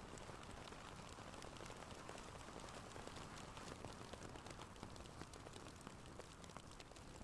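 Wood fire burning in a fireplace: a soft steady hiss with frequent small crackles and pops, faint throughout.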